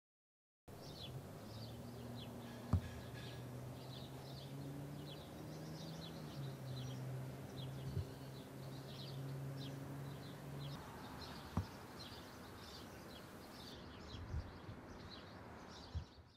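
Faint outdoor ambience of small birds chirping over and over, over an even background hiss. A low steady hum underlies the first two-thirds and then stops. A few sharp single clicks stand out.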